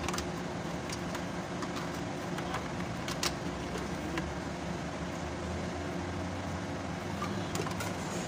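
Steady low background hum of vehicle noise, with a few light clicks and knocks of a plastic air intake duct being pushed and fitted into place.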